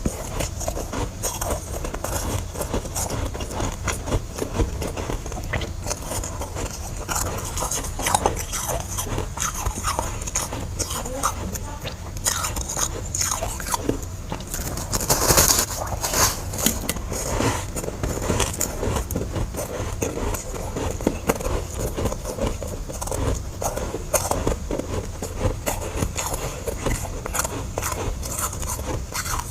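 Close-miked biting and chewing of freezer frost and ice chunks: a dense run of crisp crunches, with one louder bite about halfway through.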